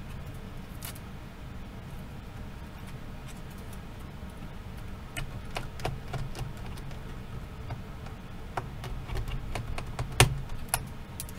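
Scattered small clicks and taps of a screwdriver and small screws being handled on the open laptop chassis, sparse at first and more frequent in the second half, with one sharper knock about ten seconds in.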